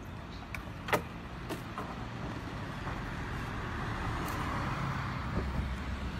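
Water streaming and splashing off the mesh of a bamboo-framed lift net as it is hoisted from the sea, a hiss that swells through the second half, over the steady low hum of a motor. A sharp knock about a second in.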